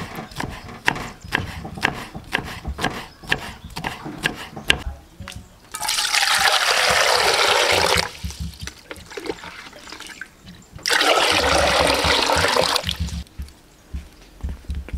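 A cleaver chopping wood ear mushroom on a wooden chopping board, steady knocks two or three a second. Then come two loud bursts of rushing, bubbling water about two seconds each, from a pot boiling hard.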